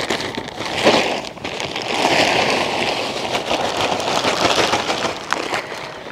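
Bark mulch being poured out and spread over the soil: a crackly, rustling patter of loose bark pieces, with a brief louder burst about a second in.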